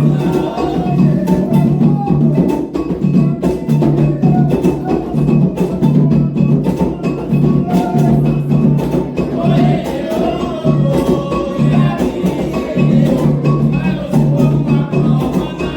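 Candomblé ritual drumming: atabaque hand drums playing a fast, dense toque over an iron agogô bell, with singing that comes in near the start and again around the middle.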